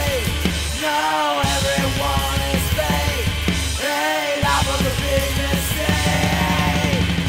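Punk-grunge rock song played by a band of bass, drums and guitar. The bass and drums drop out briefly about a second in and again about four seconds in.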